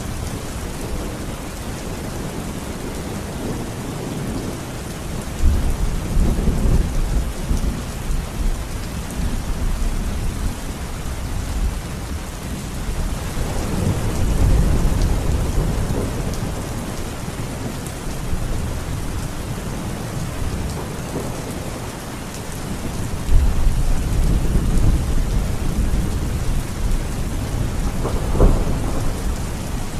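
Steady rain hissing, with low rolls of thunder swelling up several times: about a fifth of the way in, around the middle, and again through the last part.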